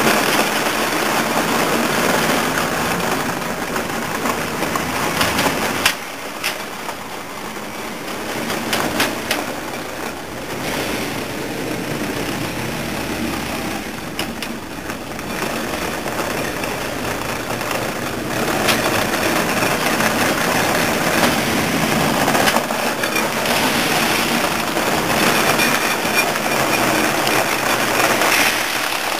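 1/6-scale radio-controlled Marder III Ausf M model tank driving on concrete, its electric drive motors and tracks running. The sound drops as the tank moves away, then grows louder again from about two-thirds of the way in as it comes back.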